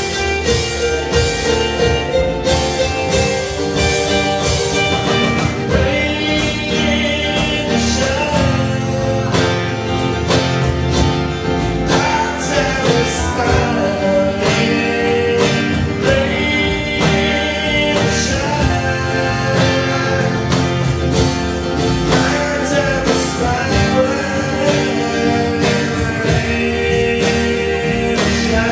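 A band playing a song with drums, bass and guitar, in a stretch between sung choruses; a high, wavering lead melody comes back every few seconds over a steady beat.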